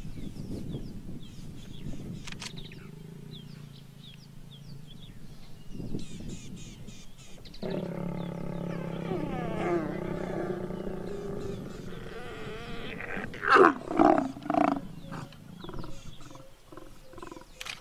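Lions growling and snarling while mating. Low growls give way about eight seconds in to a long, drawn-out snarl, which ends in three loud, sharp snarls about fourteen seconds in.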